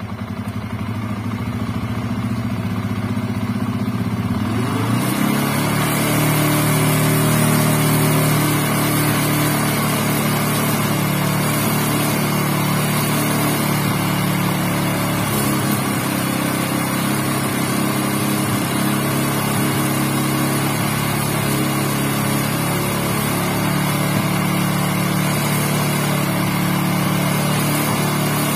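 TVS Apache RTR single-cylinder motorcycle engine running just after starting. Its revs rise about four to five seconds in and then hold steady at a raised speed, the fast idle at which the carburettor's air screw is set.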